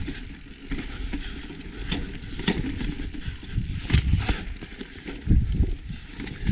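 Mountain bike riding over a rocky dirt trail: a low rumble with frequent sharp clacks and knocks as the tyres and bike hit rocks, heaviest about four seconds in and again a second later.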